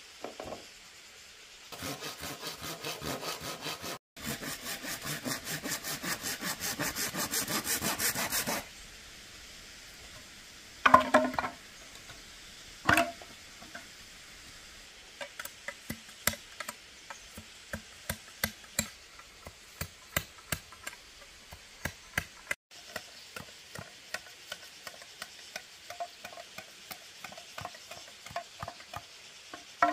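Hand saw cutting through bamboo with fast, even strokes for several seconds, then two loud, hollow-ringing knocks and a long run of light, irregular taps and clicks.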